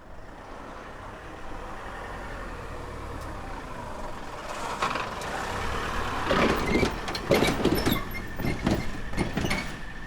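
A train approaching and passing over a railway level crossing: a rumble builds steadily, then from about six seconds in the wheels clack over the rail joints in quick pairs.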